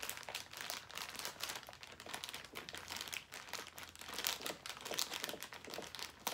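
Crinkly plastic packaging crumpled and handled, a dense, continuous run of small crackles, made on purpose as an ASMR sound.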